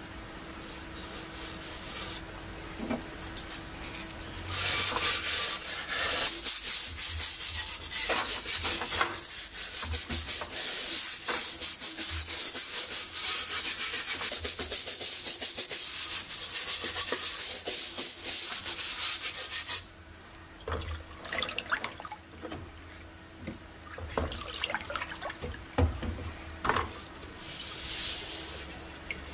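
A scouring sponge scrubs hard and fast over the rusty steel shell of a WWII German M35 helmet for about fifteen seconds. After that, liquid sloshes and splashes in a metal bucket as the wet helmet is turned.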